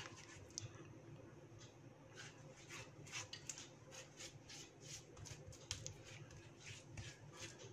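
Faint, irregular soft strokes of a hand smearing ghee over a thin sheet of rolled-out dough, a couple of strokes a second.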